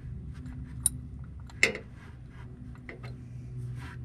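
Ratchet and 15 mm socket clinking on a car's oil drain plug as it is loosened: a few separate sharp metal clicks, the loudest about a second and a half in with a short ring.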